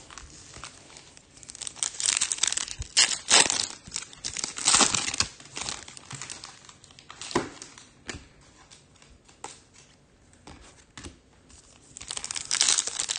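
A foil Topps Chrome trading-card pack wrapper being torn open and crinkled, in irregular rustling bursts that are loudest a couple of seconds in and again near the end.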